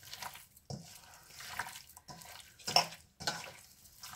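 Hands mixing raw chicken pieces with chilli powder and salt in a stainless steel bowl: wet squelching strokes, several of them at irregular intervals, with the meat slapping against the steel.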